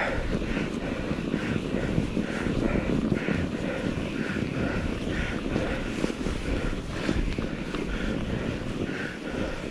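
Mountain bike being ridden through deep snow: a steady rumble of tyres and wind on the microphone, with a rhythmic higher sound repeating about twice a second.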